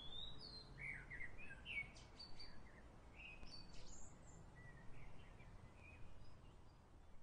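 Faint birdsong: scattered short chirps and whistles from several birds over a low background of outdoor noise.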